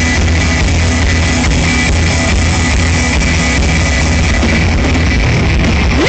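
Rock band playing live, with electric guitars and drums loud and steady throughout. Just before the end a note slides upward.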